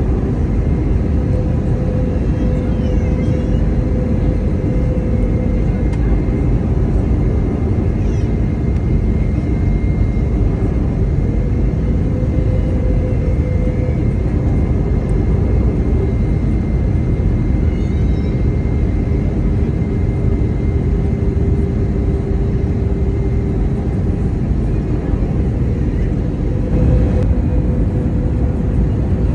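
Airbus A320neo cabin noise heard from a passenger seat: a loud, steady rush of engine and airflow noise with a steady engine hum and a thin whine held above it.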